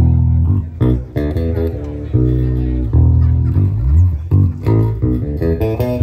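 Recorded music with a heavy bass guitar and plucked guitar melody, played loud through a PA sound system being demonstrated.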